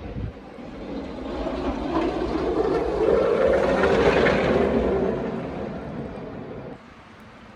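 A vehicle passing, its rushing road noise swelling to a peak and fading away, then cutting off abruptly near the end.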